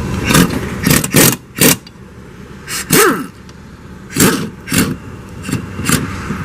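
An irregular run of short, sharp metallic noises, about ten in six seconds, as tools work the bolts on a utility vehicle's new wheel hub while they are tightened down.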